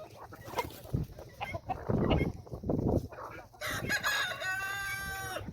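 Chickens clucking in short, irregular calls, then a rooster crowing once in a long, held call that cuts off near the end.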